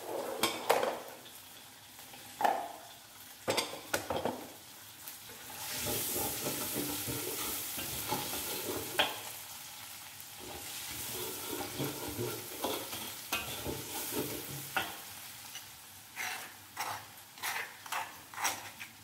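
Minced ginger sizzling in melted butter in a steel wok while a metal spatula stirs and scrapes it, with sharp clinks of the spatula against the wok in the first few seconds. Near the end comes a quick run of clinks and scrapes as a spoon works chopped garlic in a stone mortar.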